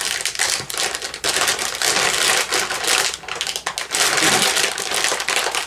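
Sealed plastic popcorn bag crinkling in irregular bursts as hands tug and pull at its top, struggling to tear it open.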